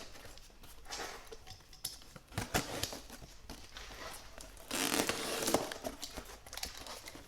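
A mailed package being torn open by hand: packing tape ripping and cardboard or packaging scraping and crackling, in short bursts with clicks between them. The longest and loudest rip comes about five seconds in.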